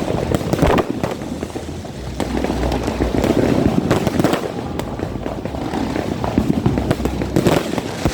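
Fireworks going off in a dense barrage: many bangs and crackles overlapping in quick succession, a little louder after about two seconds.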